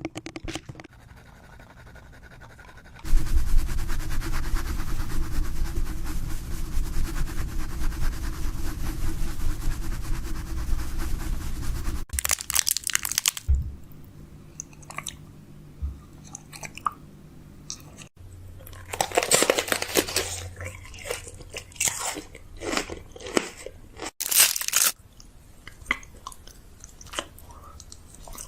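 Handling sounds of restocking a fridge: crinkling, crunching and sharp clicks and clatters of packaging and containers being handled, in a string of separate short takes. A stretch of steady noise with a low rumble runs for several seconds in the first half.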